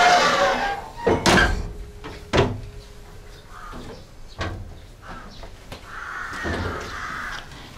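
Metal clanks and bangs as a passenger carriage's hinged step plate and folding stairs are lowered at the door. The loudest two bangs come about one and two and a half seconds in, one leaving a short metallic ring.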